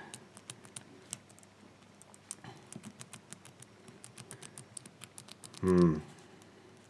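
Number wheels of a Brinks four-wheel combination padlock being turned by hand, giving a quick, uneven run of small clicks as each wheel steps through its numbers while it is felt for its gate. A short hum from a voice comes near the end.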